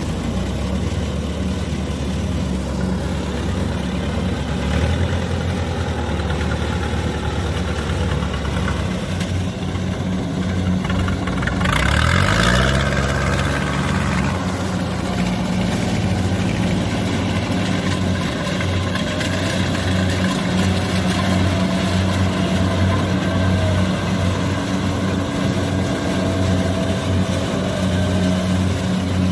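Kubota combine harvester's diesel engine running steadily under load. About twelve seconds in it revs up with a rising pitch and a two-second surge of noise, then settles back to a steady run.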